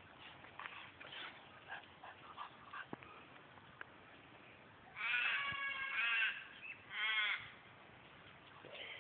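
Two drawn-out, pitched animal calls: a long one about five seconds in lasting over a second, then a shorter wavering one a moment later, over faint scattered ticks.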